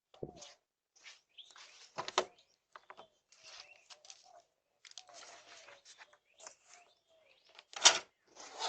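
Faint bird chirps over quiet outdoor background noise, with scattered rustling and two louder short knocks, one about two seconds in and one near the end.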